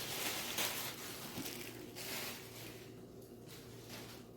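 Rustling and crinkling of packaging being handled, with a couple of brief louder crinkles in the first half that die down toward the end.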